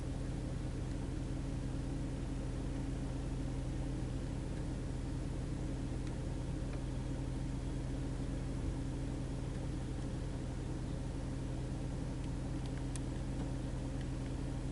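A steady low mechanical hum over a background hiss, unchanging in pitch and level.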